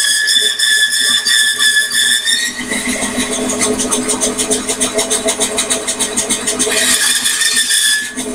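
Microlux variable-speed bandsaw running with a high steady whine that drops to a lower, rougher tone about two and a half seconds in, as the blade works through a piece of crotch wood. The high whine comes back briefly near the end.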